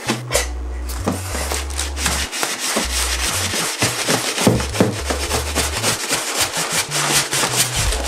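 Styrofoam end caps and plastic wrap of a boxed PC case rubbing and scraping against the inside of its cardboard box as the case is pulled out, in a string of irregular scuffs. Background music with a low bass line plays under it.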